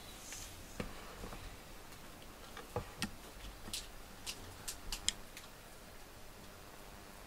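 Quiet room with a scattered run of faint, irregular small clicks and ticks, most of them around the middle of the stretch.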